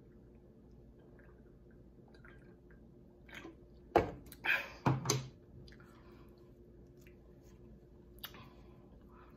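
A drink can set down onto the table with one sharp knock about four seconds in, followed by a few short wet mouth sounds of eating and swallowing.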